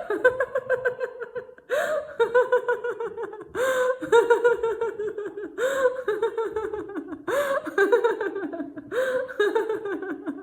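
A woman laughing hard in about six bursts of rapid 'ha-ha-ha' pulses, each burst falling in pitch and opening with a sharp breath in: deliberate laughter-yoga laughter.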